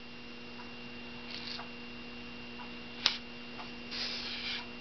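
Blue tape being handled and pressed onto a turned wooden canoe form: soft rustles twice, with one sharp click about three seconds in. A steady electrical hum runs underneath throughout.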